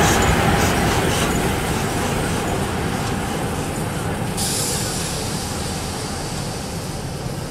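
Steam tank locomotive running past and away along the track, its noise fading steadily as it goes. A steady high hiss comes in about halfway through.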